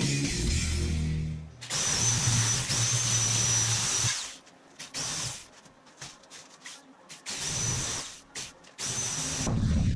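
Handheld electric sheet-metal cutter cutting through aluminum sheet, running with a steady high whine: one long cut of about two and a half seconds, then three shorter bursts. The end of the intro music plays in the first second and a half.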